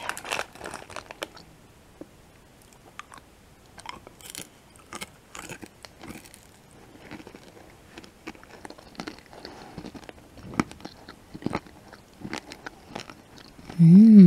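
Close-miked chewing of M&M's candies: a run of sharp crunches at the start as the hard candy shell breaks, then quieter, scattered crunches and wet mouth clicks. Near the end comes a louder short voiced hum that rises and then falls in pitch.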